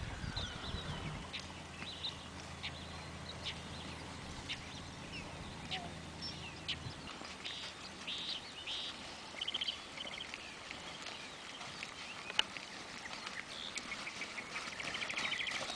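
Birds calling and chirping again and again, some calls trilling, over the soft hoofbeats of a horse loping on arena dirt. One sharper click comes about three-quarters of the way through.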